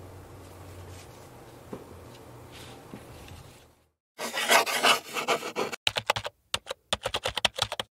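Faint room tone with light brush taps on watercolor paper, then, after a short silence, a loud scratchy pen-on-paper scribbling effect for about a second and a half, followed by a quick run of typing clicks.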